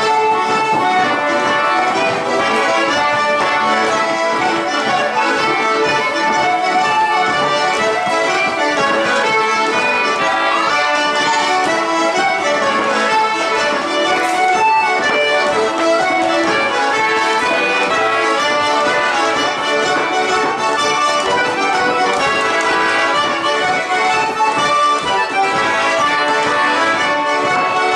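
Folk session music: several acoustic instruments playing a traditional tune together, at a steady level with no break.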